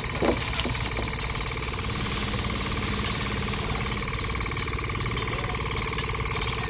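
Small electric motor of a DIY miniature rice mill running steadily: an even, buzzing hum with a fast fine flutter.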